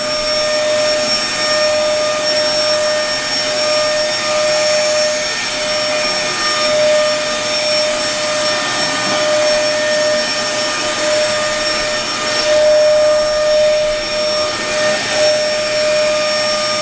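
Vacuum cleaner running steadily: a constant motor whine over a loud rushing of air, swelling slightly in loudness a couple of times.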